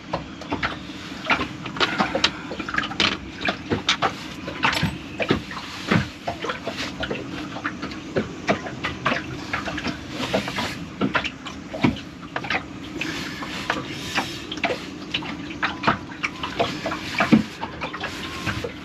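Bilge pump parts being worked by hand, with irregular clicks, knocks and scrapes as a part is pushed and twisted onto a fitting that will not seat. A steady low hum runs underneath.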